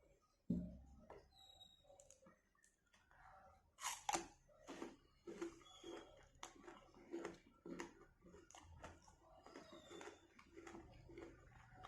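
Close-miked chewing of raw green mango coated in red chilli masala. After a dull thump about half a second in, there is a louder crunch about four seconds in, then steady chewing at about two chews a second.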